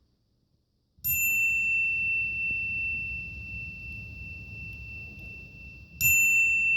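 A bell sound effect: a single clear, high ding that rings on and slowly fades, struck once about a second in and again near the end.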